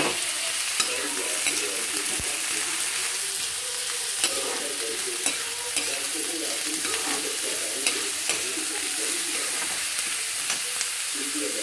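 Chopped vegetables sizzling in hot oil in a kadhai while a metal spatula stirs them, with irregular sharp clicks as the spatula knocks and scrapes against the pan.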